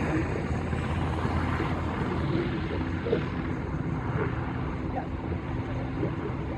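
UH-60 Black Hawk helicopter's main rotor and twin turboshaft engines running steadily during take-off, a constant low rotor drone with turbine noise.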